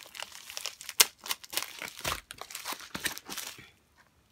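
Plastic packaging of diamond painting kits crinkling as the packets are handled and moved. There is a sharp tap about a second in and a dull thump around two seconds. The rustling stops shortly before the end.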